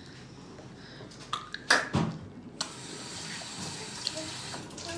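A few knocks and a clatter, the loudest about two seconds in, then a kitchen sink tap running steadily from a little past halfway until just before the end.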